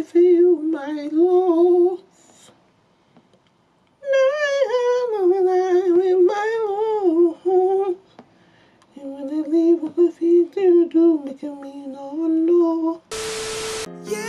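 A woman humming a wordless tune in wavering phrases, with two short pauses. Near the end a second-long burst of hiss cuts in, followed by keyboard music.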